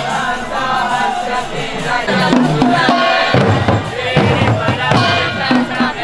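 Devotional group chanting with drum beats, as in a kirtan, with a sung melody over a steady drum rhythm.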